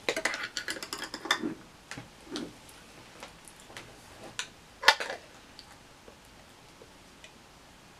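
Small clicks and crackles from handling food packaging and tortilla chips, with a quick run of crackles in the first second and a half and one sharp click about five seconds in.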